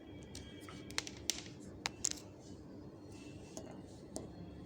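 A few light, sharp clicks and taps from handling a digital multimeter and its test probes, bunched about one to two seconds in with a couple of fainter ones near the end: the meter being set up and the probes put to a 9-volt battery's terminals.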